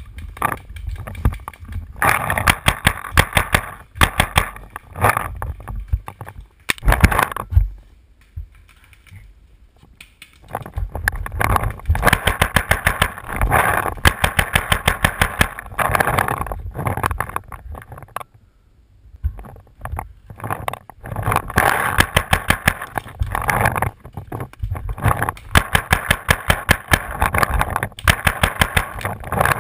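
Paintball markers firing in long rapid bursts of sharp pops, with two short lulls.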